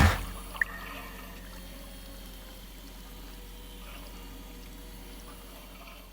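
Record Power wet stone sharpening system running quietly: a steady low motor hum with the water-fed grinding wheel making a faint trickling, pouring sound. There is a single short tick about half a second in.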